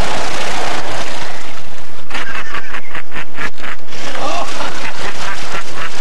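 Water splashing and sloshing in a dunk tank as a man plunges in, dying away about a second in. Then a man laughing hard in quick bursts.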